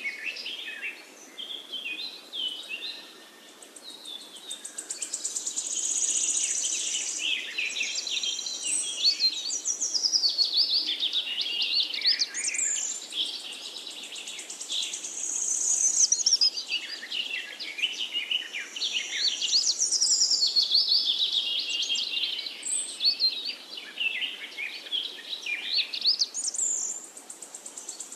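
Several songbirds singing at once, fast trills and quick repeated chirps overlapping and swelling and fading in turn, over a faint steady hiss.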